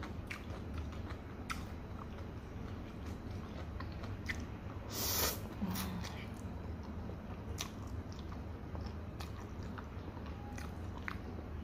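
Close mouth sounds of a person eating fried noodles: wet chewing and small smacking clicks, with one louder slurp about five seconds in as noodles are drawn into the mouth. A steady low hum sits underneath.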